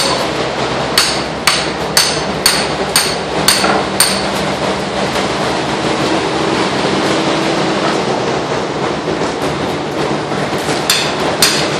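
Hammer strikes with a bright ring, about two a second for a few seconds, then a few more near the end, over steady machinery noise.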